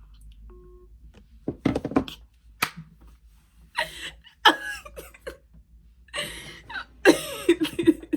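A woman laughing in several short bursts.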